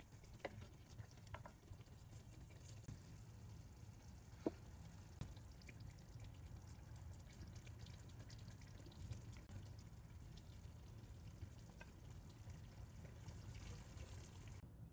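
Near silence: faint wet spooning sounds and a few light clicks as a wooden spoon serves chicken gravy into a bowl of rice, over a low steady hum. The sharpest click comes about four and a half seconds in.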